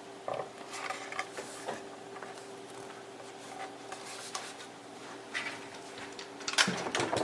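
Hands handling computer hardware on a workbench: scattered clicks, taps and rustles, with a louder clatter of knocks near the end, over a faint steady hum.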